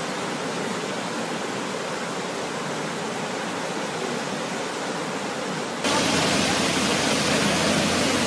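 Muddy flash-flood water rushing and churning with debris, a steady noise. About six seconds in it becomes suddenly louder, with floodwater pouring over a stone wall.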